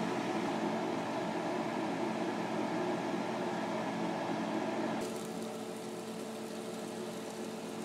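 Pot of green beans at a rolling boil, water bubbling steadily; about five seconds in it gives way to sliced smoked sausage sizzling in a frying pan.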